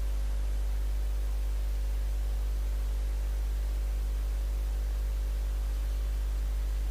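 Steady low electrical mains hum with a faint even hiss from the recording, unchanging throughout; no voice.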